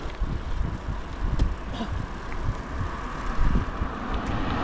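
Wind buffeting the microphone of a camera on a moving bicycle, a gusty low rumble. Near the end an oncoming car's approach rises under it.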